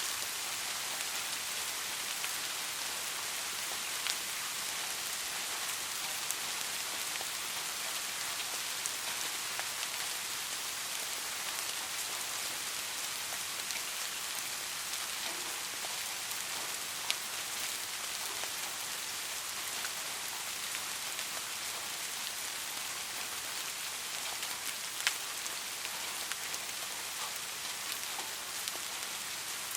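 Light, steady rain pattering on a surface, an even hiss with scattered sharper individual drop hits.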